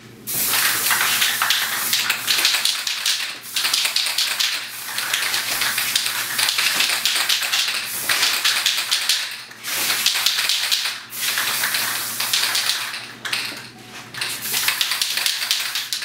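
Aerosol spray-paint can hissing in long bursts of one to three seconds, with short breaks between them as the nozzle is released and pressed again.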